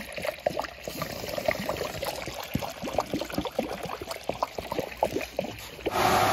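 Fuel being poured into a fuel tank, gurgling and splashing in quick, irregular glugs. Near the end it cuts suddenly to a louder, steady mechanical hum.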